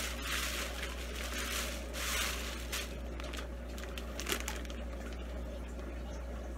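Clear plastic fish-shipping bags crinkling and rustling as they are handled and lifted out of the box, busiest in the first two seconds or so, followed by a few light taps.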